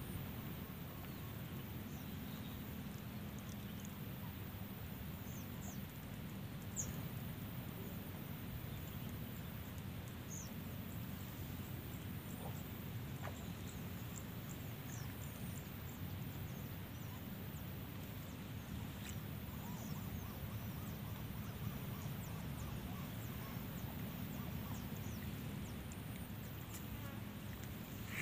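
Swamp ambience: a steady high insect drone with many short high chirps scattered through it, over a steady low rumble.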